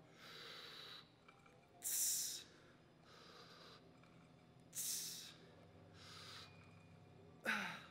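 A man breathing hard through a set of cable lateral raises: three sharp, loud exhales about three seconds apart, each followed by a quieter inhale. The last exhale ends in a short grunt.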